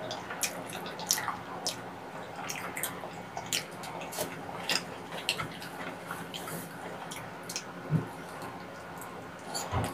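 Close-up wet eating sounds from soft steamed kabocha squash with melted cheese: moist mouth smacking and squishing, with many short wet clicks scattered throughout and a soft bite about eight seconds in.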